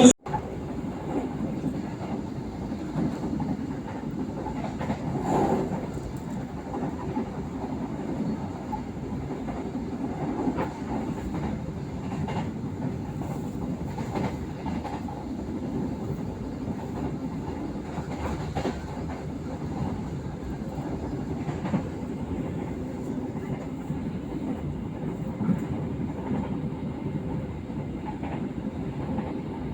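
Jayabaya passenger train running steadily along the track: a continuous low rumble of wheels on rail, with a sharp click from the wheels every few seconds.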